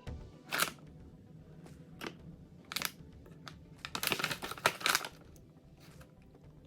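Handling noises: a series of short rustles and clicks, with a denser cluster about four to five seconds in.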